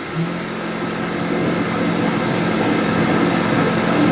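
Leica HistoCore Pearl tissue processor starting its cleaning program: a pump comes on about a quarter second in and runs with a steady hum over a hiss, growing slowly louder, as the machine performs its pre-run check.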